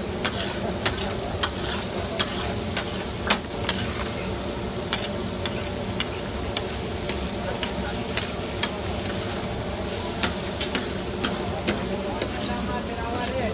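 Chunks of meat sizzling in oil on a large flat metal griddle, with a metal spatula knocking and scraping against the griddle in sharp clicks, roughly two a second with short pauses.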